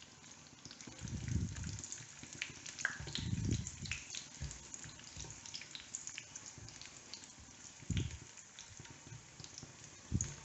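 Cashews and raisins frying in a little ghee in a pan over a low flame: a soft, even sizzle with scattered small crackles and pops, and a few dull thuds.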